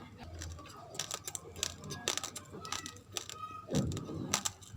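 Close-up chewing of raw, uncooked rice grains: a run of sharp, irregular crunches, louder toward the end.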